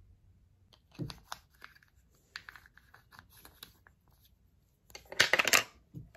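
Handling noise from makeup brushes and products: scattered small clicks and taps, then a loud burst of rapid scratchy clicking lasting about half a second, about five seconds in.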